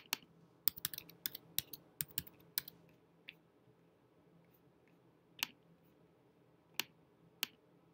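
Typing on a computer keyboard: a quick run of keystrokes over the first two and a half seconds, then four single clicks spaced out over the rest.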